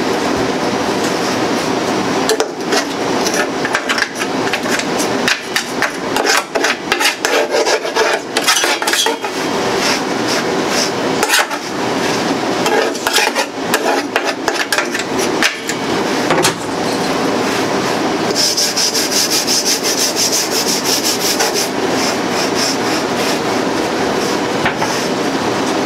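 Hand scraping and scrubbing on the steel inside a commercial charbroiler, rasping strokes with scattered knocks of metal, as built-up grease is scraped off. A little past two-thirds of the way in comes a run of fast, even scraping strokes.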